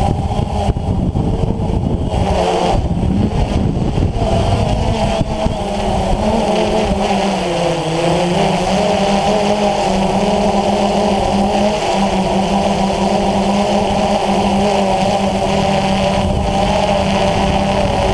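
DJI Phantom FC40 quadcopter's four electric motors and 9450 propellers whining steadily in flight, heard from the camera mounted on the drone itself, with a low rumble beneath. The pitch wavers about three seconds in and dips briefly about eight seconds in as the motors change speed.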